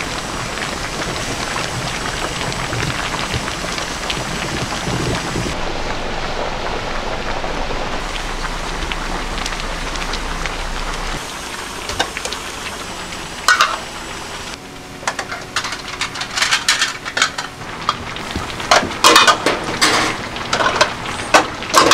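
Yellow aluminum pots of spicy braised cutlassfish boiling over gas burners, a steady bubbling. From about halfway on come sharp metallic clanks and knocks of the pots being handled, loudest near the end.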